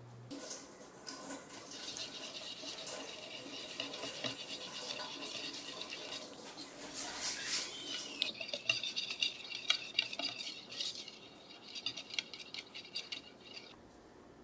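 Wire balloon whisk beating a thin liquid marinade in a mixing bowl: quick, rhythmic wet swishing, with the wires scraping and ticking against the bowl. The strokes grow sharper and denser about halfway through.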